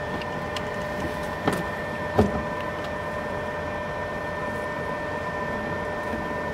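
Small boat's motor running steadily with a constant whine, and two short knocks about one and a half and two seconds in.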